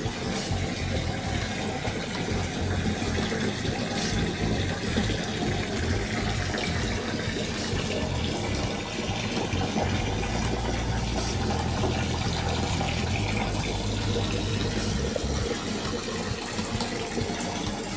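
Bath tap running steadily, water pouring into a filling bathtub.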